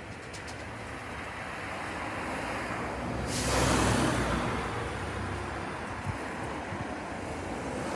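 Mercedes-Benz bin lorry running at a standstill with a steady low engine hum, which builds up, and a sudden louder rush of hissing noise about three seconds in that fades away over the next two seconds.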